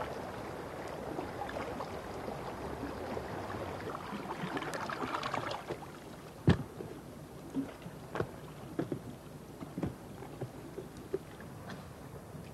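Water sloshing and lapping around a Greenland kayak as it is paddled with a narrow wooden paddle, swelling briefly before easing off. In the second half, a string of short, light knocks and splashes at irregular intervals as the kayak comes alongside rocks.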